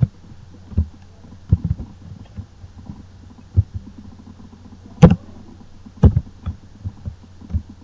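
Computer keyboard keystrokes, pressed one at a time at an uneven pace, as code is typed. The two firmest key presses come about five and six seconds in, over a faint steady low hum.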